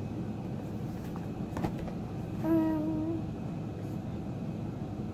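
Steady low background rumble, with a single light click about a second and a half in and a short flat-pitched hummed voice sound a little later.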